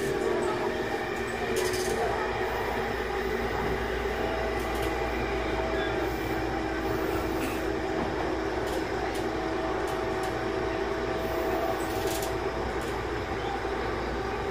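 Tobu 20070 series commuter train running through the subway, heard from inside the car: a steady rumble with motor tones held at an even pitch and a few sharp wheel clicks.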